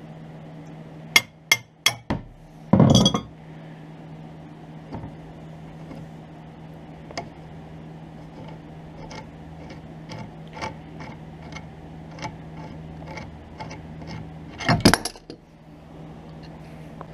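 Metal clinks and clanks of an adjustable wrench and a castle nut being worked loose on a tie rod end's tapered stud: a few sharp clicks about a second in, a short clatter, then light ticks about twice a second as the nut is turned off. A louder clank near the end as the tie rod end comes out of the steering arm, all over a steady low hum.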